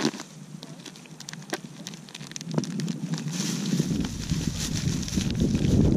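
Clear plastic bag crinkling and crackling in rapid, uneven clicks as gloved hands handle a bag of small fish. From about two and a half seconds in, wind buffets the microphone with a deep rumble that grows louder and takes over.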